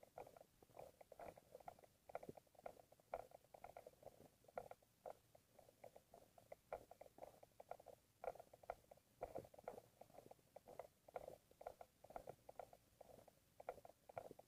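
Mountain bike rattling and clattering over a rough, rocky dirt trail: a faint, irregular stream of small knocks and clicks.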